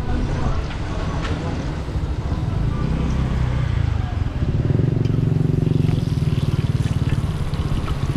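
A motor engine running steadily, louder from about four and a half seconds in, with a few light scrapes and taps of a metal spatula on a flat roti griddle.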